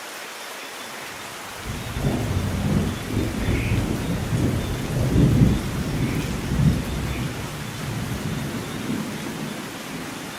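Steady rain with a long roll of thunder that comes in about two seconds in, swells to its loudest in the middle and rumbles away toward the end.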